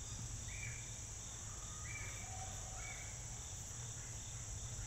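Faint outdoor insect chorus: a steady high drone with a softer chirp pulsing about three times a second, and a few short faint tones in between.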